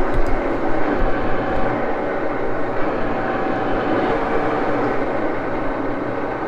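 Axelson lathe running steadily, its motor and headstock gearing giving a constant whirring drone, with a few low knocks in the first second and a half.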